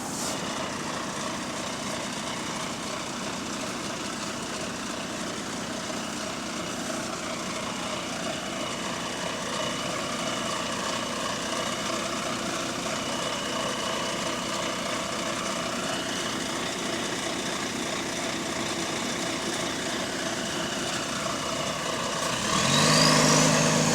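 Bus engine running steadily, with the exhaust leak the bus is known for. Near the end it speeds up: it gets louder and a high whine rises in pitch.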